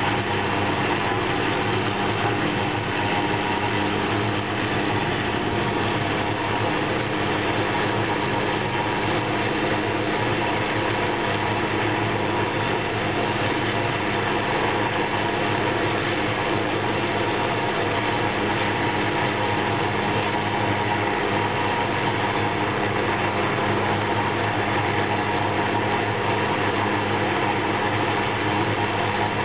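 Hughes 500C helicopter running on the ground with its rotors turning: the steady whine of its Allison 250 turboshaft engine and the sound of the main and tail rotors, holding one even speed without rising or falling.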